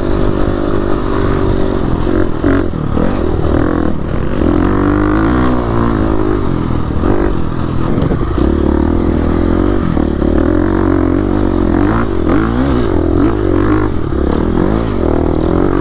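A 2017 KTM 350 EXC-F dirt bike's single-cylinder four-stroke engine, revving up and down again and again under the throttle while being ridden. Occasional clatter and knocks sound through it.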